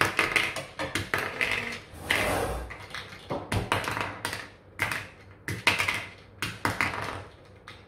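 A run of irregular light taps and clicks, about a dozen spread over several seconds, with a short scraping rustle about two seconds in.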